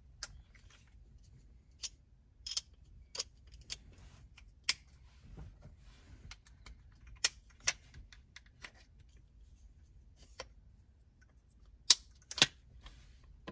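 Irregular sharp clicks and taps of a screwdriver working at the screws of a car's plastic dashboard trim, with two louder clicks near the end.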